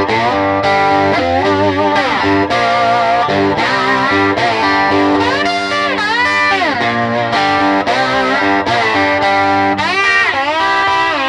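Telecaster-style electric guitar played through a Fender Pro Junior IV tube amp with a 10-inch Jensen speaker. Lead phrases of chords and single notes, with repeated string bends that rise and fall in pitch.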